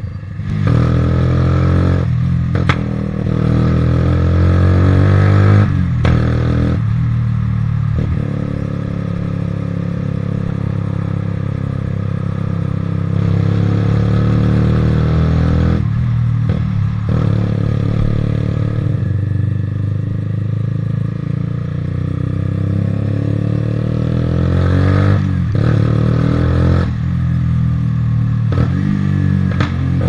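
Lexmoto Falcon 125 motorcycle's 125cc engine running through a Lextek XP8C aftermarket exhaust, heard from on the bike while riding. The engine note rises under acceleration, drops away at each gear change or throttle lift, and picks up again lower, several times over.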